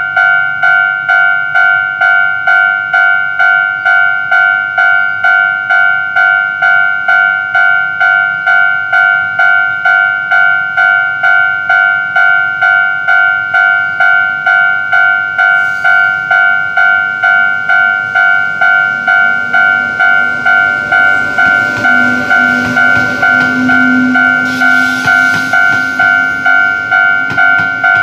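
Railway level-crossing warning bell ringing steadily at about one and a half strikes a second. From about twenty seconds in, a Taiwan Railway PP Tze-Chiang push-pull train, led by its E1000-series electric locomotive, adds a low motor hum and wheel noise that swell as the coaches pass.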